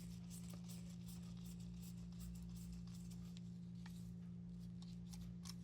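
Faint small clicks and scratches of a small screwdriver driving screws to fasten a diecast toy car's body to its base, over a steady low hum.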